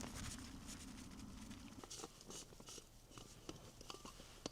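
Faint light clicks and rustling of camp cooking gear being handled, with a low steady hum that stops about two seconds in.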